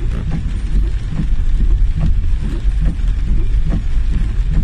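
Steady low rumble of a car heard from inside the cabin in heavy rain, with scattered faint taps of rain on the body and windshield.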